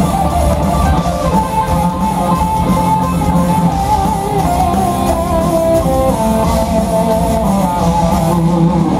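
Heavy metal band playing live: an electric guitar plays a melodic lead line with wavering vibrato, the notes stepping up and down, over bass guitar and drums.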